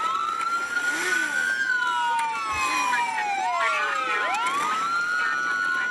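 Several police car sirens wailing at once, their rising and falling tones overlapping.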